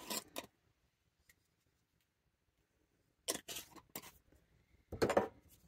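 Salt shaken from a shaker over flour, heard as a few short, dry strokes in small clusters: at the start, about three seconds in, and a stronger one near the end.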